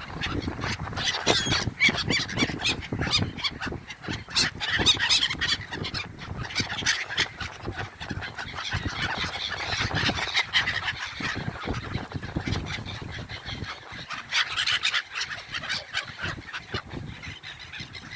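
A flock of gulls calling over one another: many harsh, overlapping squawks in a continuous clamour as they crowd in to be fed bread.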